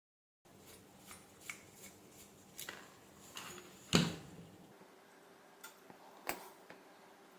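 Hands handling the kettle's plastic base connector and its parts: scattered small clicks and taps, with a louder knock about four seconds in and another a little after six seconds.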